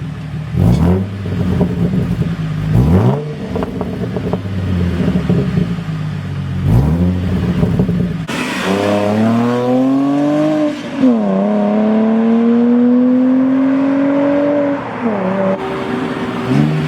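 Holden VE Commodore engine through straight-pipe exhaust, idling with three quick revs. It then pulls hard, its note climbing, dropping sharply at a gear change about 11 seconds in, and climbing again before easing off.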